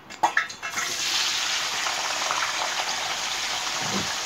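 Irish potatoes going into hot vegetable oil for deep frying. A few light clicks are followed, under a second in, by a sudden loud, steady sizzle as the oil starts frying them.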